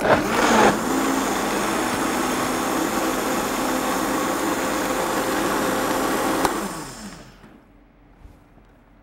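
Countertop blender blending frozen berries, pineapple juice and yogurt into a smoothie: it starts suddenly and runs steadily at high speed for about six and a half seconds, then there is a click and the motor winds down with a falling whine.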